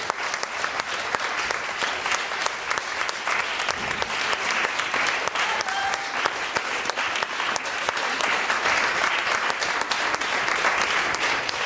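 Audience applauding, steady dense clapping from many hands.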